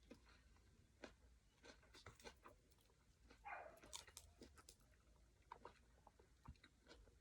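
Quiet mouth sounds of someone eating noodle salad close to the microphone: chewing with scattered small crunches and wet clicks, and a short squelchy sound about three and a half seconds in.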